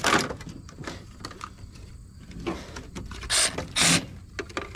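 Compact cordless reciprocating saw run in two short bursts about three and a half seconds in, cutting into a mini-split air conditioner's indoor unit, with clicks and clatter of the unit's metal and plastic being handled.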